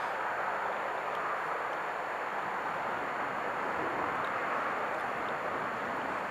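Distant steam train running across open country: a steady rushing noise with no distinct exhaust beats.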